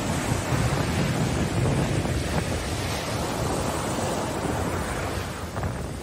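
Gulf of Mexico surf washing up the beach, foamy water rushing over the sand in a steady wash of noise, with wind buffeting the microphone in a low rumble. It eases slightly near the end.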